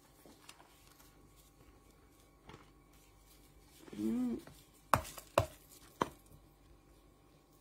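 Quiet kitchen handling while rolling spring rolls: a woman's brief hum about four seconds in, then three sharp clicking knocks of kitchenware on a plastic cutting board, about half a second apart.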